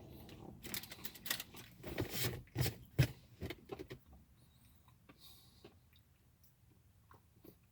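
Chewing a bite of a Hostess Ding Dong snack cake: wet mouth clicks and crackles, busiest in the first few seconds, then only a few faint clicks.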